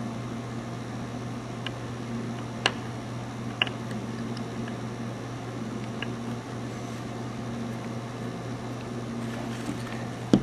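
Steady low hum and hiss in the background, with a few faint clicks from small plastic miniature parts being handled and pressed together.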